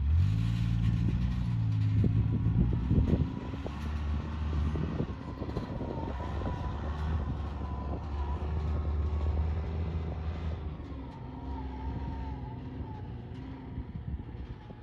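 Side-by-side utility vehicle's engine revving up over the first couple of seconds, then running steadily as it drives, growing fainter near the end as it moves away.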